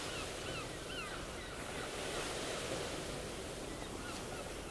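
Steady rush of ocean surf, with a few faint short high chirps over it in the first second or two and again near the end.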